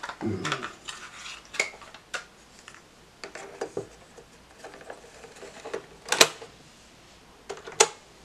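Plastic clicks and clatter of a cassette being swapped in a 1970s Viking shoebox cassette recorder: the tape handled in the lid, the lid snapping shut and the piano-key buttons pressed. Single sharp clicks; the loudest comes about six seconds in, and another near the end as the play key goes down.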